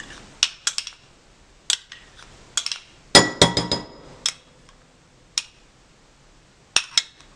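Metal spoon clinking and scraping against a small glass bowl while scooping out mayonnaise: irregular clinks, some ringing briefly, with the loudest cluster about three seconds in.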